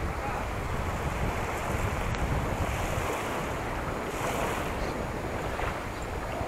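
Wind buffeting the microphone: a steady rushing noise with an uneven low rumble.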